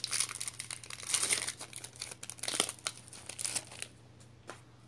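Pokémon TCG Fates Collide booster pack's foil wrapper crinkling irregularly as it is pulled open by hand, dying away after about three and a half seconds, with a single click near the end.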